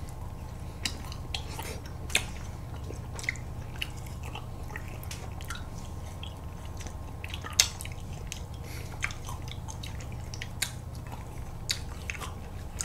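Ice cream bars on sticks being eaten close to the microphone: scattered wet bites, lip smacks and small sharp clicks, over a steady low hum.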